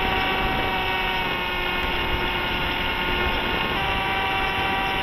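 A 2204 2300kv brushless motor driving the plank wing's propeller whines steadily in flight over a constant rush of wind. Its pitch shifts slightly a couple of times, about a second in and near four seconds.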